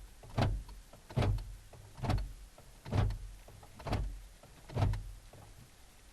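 Honda Odyssey power door lock actuator, fitted with a replacement motor, clunking as the lock is cycled over and over. The actuations come about once a second, six in a row.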